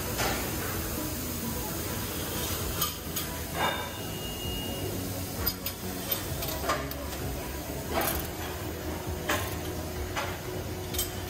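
Metal tool knocking and clanking against the steel mould of an injection moulding machine, sharp irregular knocks about once a second, over the steady hum of factory machinery.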